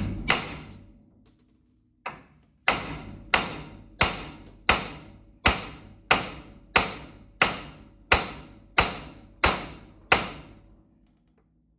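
Hammer blows on a car's steel steering knuckle, struck to shock loose a tie rod end seized in its taper. One blow comes first, then after a short pause about thirteen evenly paced blows follow, roughly one every two-thirds of a second, each ringing briefly; the tie rod end stays stuck.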